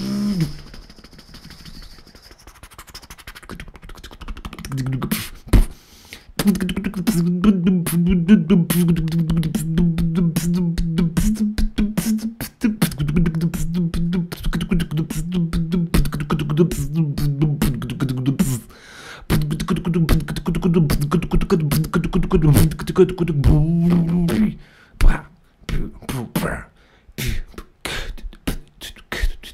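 Beatboxing into a microphone: rapid mouth-made kicks, clicks and snares, with a low voiced bass line held under the beat and stepping in pitch for most of the middle, then sparser single hits near the end.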